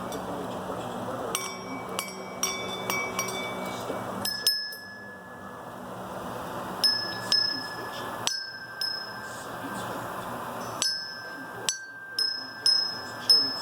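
Small bells on a homemade bell-ringing stand, struck a dozen or more times at an uneven pace. Each strike is a sharp clink that rings on briefly in high, clear tones, over a steady background hiss.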